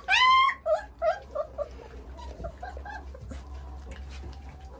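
Three-week-old Romanian Mioritic shepherd puppy whining: a loud, high, rising cry at the start, then a run of shorter, softer whimpers that fade out within about two seconds.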